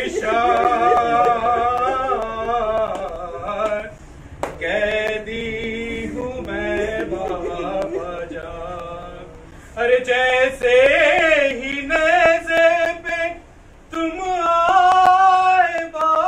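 A man chanting a noha (Shia mourning lament) unaccompanied, in long held phrases whose pitch bends and wavers, broken by short pauses. A few sharp slaps sound here and there.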